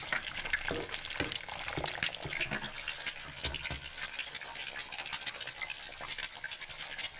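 Eggs frying in hot oil in a frying pan: a steady crackling sizzle full of small pops.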